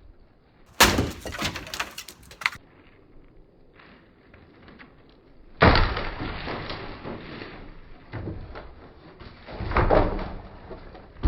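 Wooden shed being smashed apart: three loud crashes of timber cracking and splintering, about a second in, near the middle and near the end, each followed by a rattle of breaking boards.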